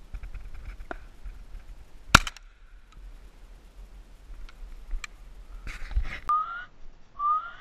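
A single shotgun shot about two seconds in, the loudest sound, against light handling rustle and clicks. Near the end, two short rising whistles.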